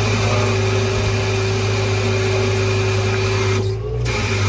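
Hydraulic outrigger on a service truck moving under power: the hydraulic system runs with a steady hum and a rushing hiss. The hiss cuts off about three and a half seconds in.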